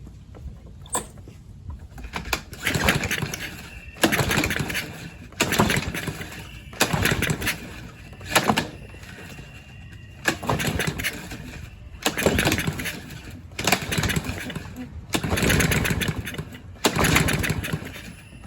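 Craftsman self-propelled lawn mower engine being cranked over and over by its pull cord, a whirring burst about a second long every second and a half or so, starting a couple of seconds in. The engine does not catch between pulls.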